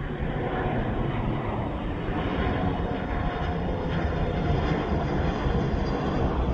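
A Xiamen Air Boeing 737-800's CFM56-7B jet engines on approach with landing gear down: a steady rumble growing gradually louder as the aircraft nears.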